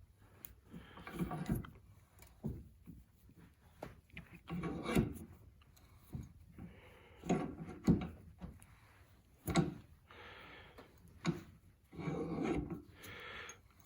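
Welded 16-gauge mild steel tube being slowly crushed, with repeated creaking and rubbing strokes and sharp clicks as the metal bends under the load.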